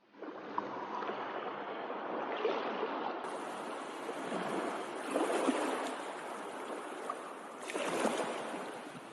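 Sea water rushing and splashing along a moving boat, swelling and easing about three times.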